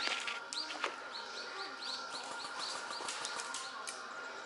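A small bird calling a quick run of about ten arched, high chirps, some six a second, with a few sharp clicks at the start and near the end.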